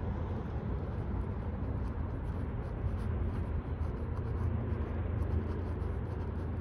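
Steady low outdoor rumble, with faint scratching of a fine-tip pen on sketchbook paper as short strokes are drawn.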